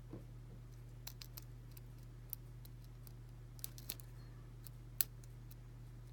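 Scattered faint metallic clicks of a lock pick working the pin stacks of a five-pin Ace closed-shackle padlock held under heavy tension, the sharpest about five seconds in, over a steady low hum.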